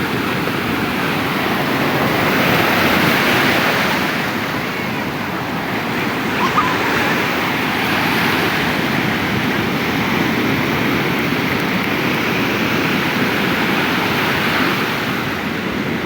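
Sea surf breaking and washing up a beach, a continuous rush that swells louder every few seconds as waves come in.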